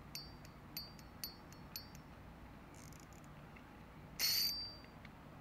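DK 3000 spinning reel's drag clicker ticking as the spool is turned by hand against the drag: a few separate clicks with a bell-like metallic ring in the first two seconds, then a short, louder ringing run of clicks about four seconds in.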